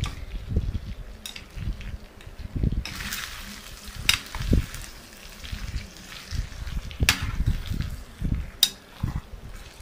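Pork with green chillies and onion sizzling in an enamel pan while a metal spoon stirs it. The spoon gives several sharp clinks against the pan, with softer knocks and scrapes between them.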